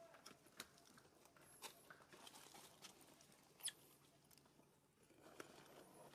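Faint, scattered crinkles and clicks of a paper milk carton as a macaque handles it and drinks from it, with one louder tick a little past halfway.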